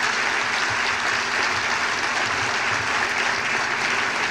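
Audience applauding steadily, an even dense clapping with no break.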